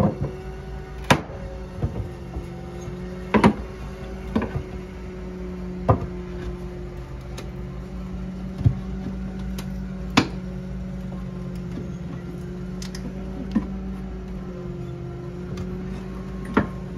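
Old wooden floorboards being pried at with a screwdriver: scattered sharp wooden clicks and knocks a second or few apart as the blade works the cut seams loose. Soft steady background music runs underneath.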